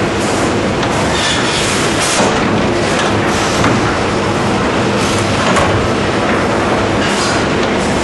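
AGREX Sharp & Kögel sawmill line running: a steady machinery hum under continuous clatter, with several brief, brighter surges of higher noise along the way.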